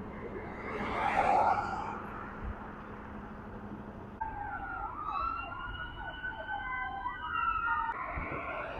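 Emergency-vehicle siren wailing in the second half, its tones gliding up and down for about four seconds before cutting off, over steady street noise. A brief louder rush of noise comes about a second in.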